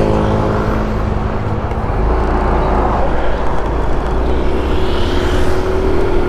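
Yamaha Mio i 125 scooter's single-cylinder engine pulling away and gathering speed, with wind rumbling heavily on the microphone from about two seconds in. A faint whine rises slowly near the end as the speed builds.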